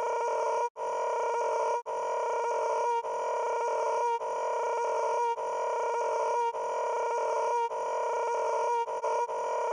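A steady, buzzy droning tone that holds one pitch, broken by brief dropouts just over once a second, as a short sound repeated over and over.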